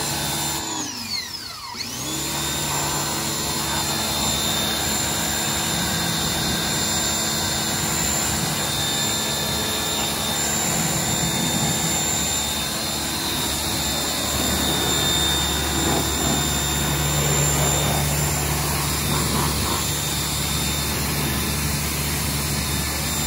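Pressure washer running with a steady motor whine and the hiss of its spray. About a second in, the motor briefly winds down and then spins back up.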